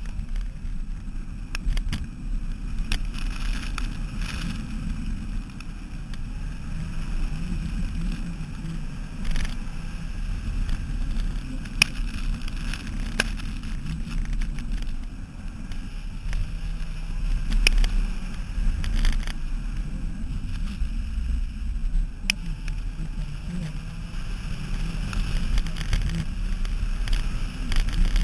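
Mini Cooper S running flat out through an autocross course, heard from a microphone mounted outside low by the rear wheel: a steady low rumble of wind buffeting, tyre and engine noise, with a few sharp clicks scattered through it.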